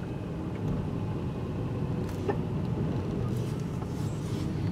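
Road and engine noise heard from inside a moving car's cabin: a steady low rumble.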